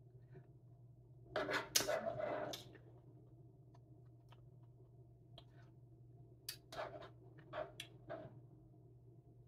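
Quiet eating sounds: a metal spoon scraping and clicking in a bowl of fruit smoothie, with mouth noises, in a cluster about a second and a half in and a few short scrapes a little after six seconds. A steady low hum runs underneath.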